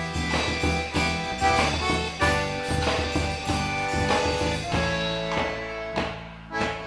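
Instrumental passage of a quadrilha junina song: sustained chords over a steady percussion beat, with no singing, dipping briefly just before the end.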